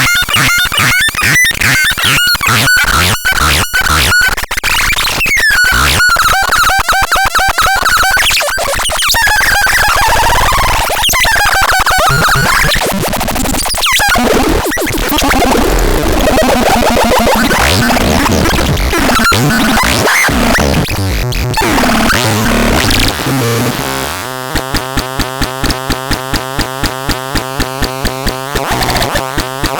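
Harsh electronic sound effects from a novelty toy's sound chip. A fast run of clicks with a repeating high beep gives way to warbling, sliding noisy tones, and in the last few seconds to a rapid, evenly pulsing buzz.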